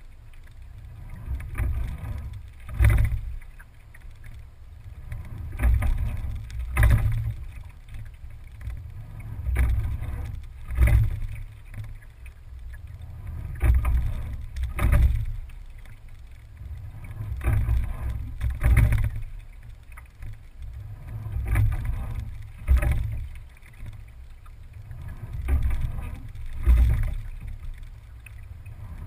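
Single scull being rowed at about one stroke every four seconds: each stroke brings a swell of water noise along the hull and a cluster of clicks and knocks from the oars and rigging. A steady low rumble of wind on the microphone runs underneath.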